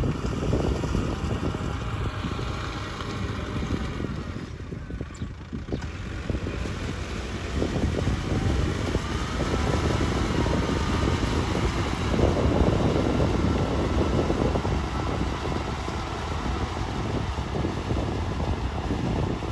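Kubota M6040SU tractor's diesel engine running steadily under load as it drives a rotary tiller through wet paddy mud, heard from a distance.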